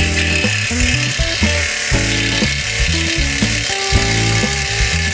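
Scroll saw running and cutting a thin plywood sheet, a steady high hiss, under background music.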